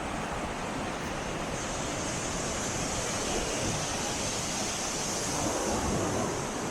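Sea waves breaking and washing up the shore at the tideline: a steady hiss of surf that swells a little twice, most strongly near the end.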